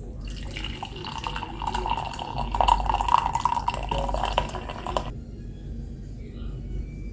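Liquid pouring into a glass, a steady splashing fill that stops abruptly about five seconds in.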